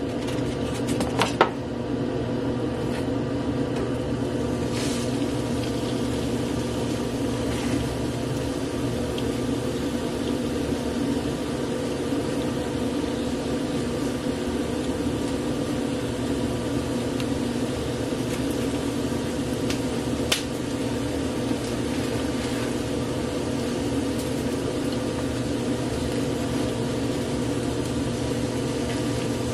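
A block of raw ground pork knocks into a hot oiled nonstick skillet about a second in and then fries with a steady sizzle, over a steady low hum.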